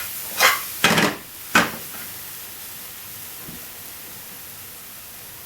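A cooking utensil knocking and scraping against a pan three times in the first two seconds, the last knock the sharpest, then spices and paste sizzling softly and steadily in the pan.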